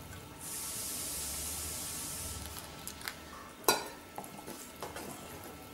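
A spoon stirring thick batter in a stainless steel bowl, with a sharp clink of the spoon against the steel bowl about two thirds of the way through and a few lighter taps around it. A steady hiss lasts about two seconds near the start.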